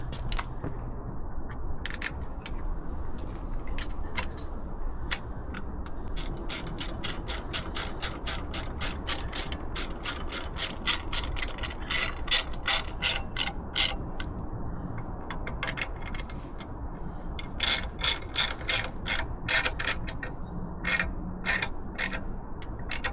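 Hand ratchet clicking in runs, about four clicks a second, with pauses between, as screws are driven in to fasten the exhaust heat shield.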